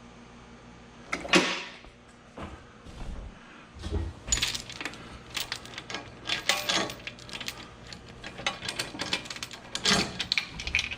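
Irregular knocks and rattling clicks of metal parts and tools being handled, with one sharp knock about a second in and quicker clicking through the second half.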